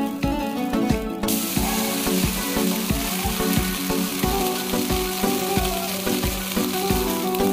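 A thin crepe frying in a hot non-stick pan, sizzling; the sizzle gets much louder suddenly about a second in and stays steady. Background music with a steady beat plays throughout.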